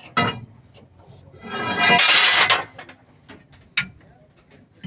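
Steel truck leaf-spring leaves being handled, clanking and scraping against each other. A sharp ringing clank just after the start, then a louder ringing metal scrape lasting about a second, with small knocks around them.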